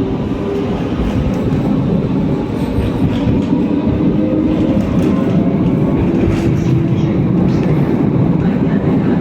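Tram running on its rails close by: a loud, steady rumble of wheels on track with a low motor hum.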